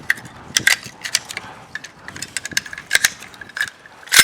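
AR-15 rifle being taken apart by hand, the buffer spring coming out of the buffer tube. There is a string of sharp metal clicks and clinks, several with a short ringing tone, and a louder clack near the end.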